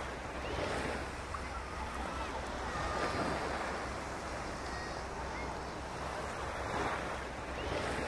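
Ocean surf breaking and washing in, swelling and easing every few seconds over a steady low rumble.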